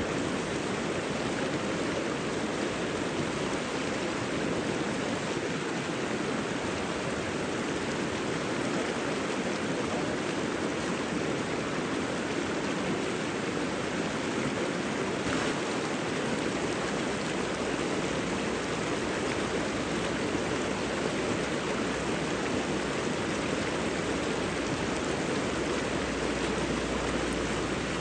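A stream or river rushing steadily.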